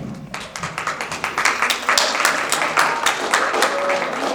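A crowd of students applauding, many separate hand claps overlapping in a scattered round of applause.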